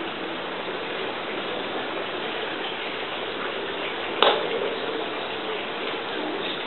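Steady hiss of background noise, with one sharp knock about four seconds in that rings briefly.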